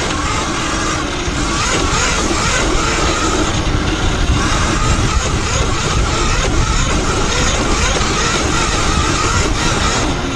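Talaria Sting electric dirt bike ridden fast on a sandy trail: loud, steady wind rush on the camera microphone and tyre noise, with a faint electric-motor whine that wavers with speed.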